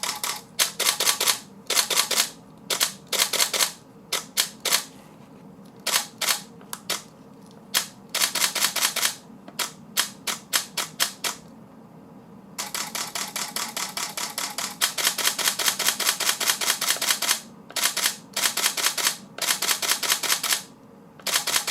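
Canon 5D Mark III shutter and mirror firing over and over as test shots: single frames and short bursts, then a continuous burst of about five seconds in the middle, then more short bursts. The camera is firing normally after repair of its power fault.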